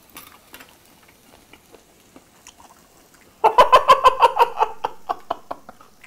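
A man laughing out loud, a burst of rapid 'ha-ha' pulses starting about three and a half seconds in and trailing off over about two seconds. A few faint small clicks come before it.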